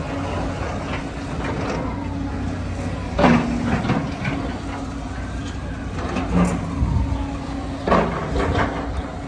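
An engine running steadily with a constant low hum, broken about a third of the way in and again near the end by brief louder sounds.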